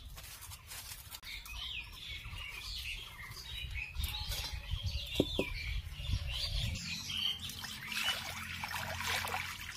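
Small birds chirping over a low rumble, with a single knock about five seconds in. Near the end, water is poured from a bowl into an aluminium wok.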